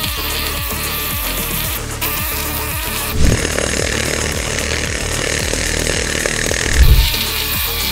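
Pneumatic needle scaler buzzing as its bundle of steel needles hammers rust and scale off a rusty truck axle hub housing, with two heavier thumps about three seconds in and near the end.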